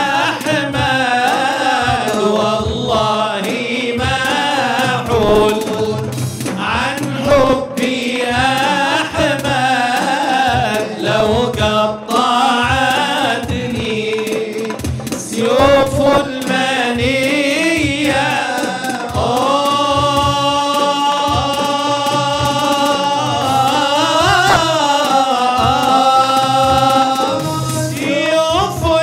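Men singing a devotional Arabic qasidah in melismatic chant style, over a frame drum beating a steady rhythm. Past the middle, the voice settles into long held notes with ornamental turns between them.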